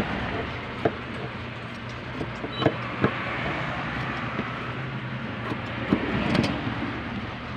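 Large fabric scissors cutting through the cotton twill of a pair of shorts, with a few sharp clicks of the blades, over steady background noise with a low, even hum.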